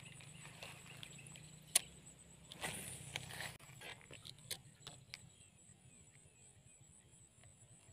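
A spinning rod and reel being handled: one sharp click about two seconds in, a short swishing rustle a second later, then a few light ticks. Under it runs a steady high-pitched insect drone.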